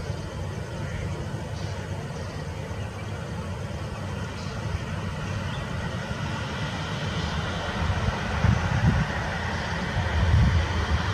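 Boeing 737-800's CFM56-7B jet engines running at low taxi thrust as the airliner rolls and turns on the runway after landing: a steady rushing hiss over a low rumble, growing louder in the last few seconds as the aircraft swings toward the listener.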